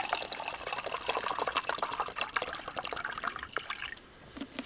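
White wine pouring into a mug, splashing and gurgling, its pitch rising as the mug fills. The pour stops about four seconds in.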